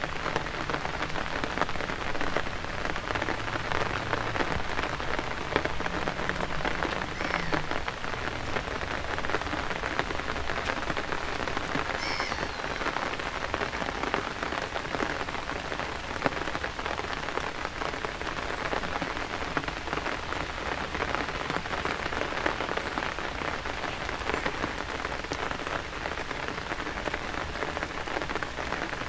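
Steady rain, a dense, even patter of close raindrops.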